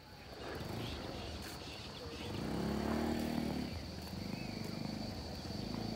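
Outdoor evening ambience: wind rumbling on the microphone under a steady high-pitched insect drone, with a faint low hum swelling about two and a half seconds in.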